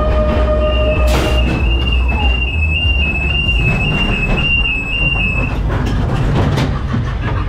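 Ghost train car rumbling along its track, with a sharp bang about a second in. A steady electronic tone from the ride's effects stops at the bang, and a high two-note electronic warble runs until a little past halfway.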